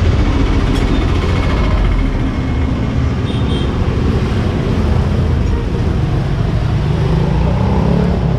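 Road traffic passing close by: steady vehicle noise, with one engine rising in pitch as it speeds up near the end.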